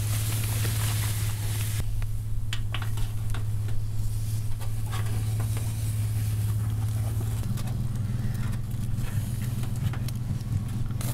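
Water sprinkled onto hot charcoal hisses for about the first two seconds and stops abruptly; then a few light clicks as metal skewers are handled on the grill. A steady low hum runs under it all and is the loudest sound.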